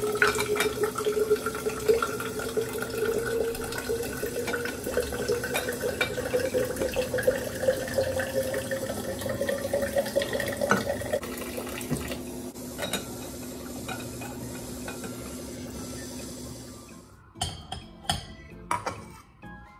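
Water pouring into a tall glass bottle, the tone of the filling rising slowly as the bottle fills. Near the end a few sharp knocks of a steel pan being handled on a gas stove.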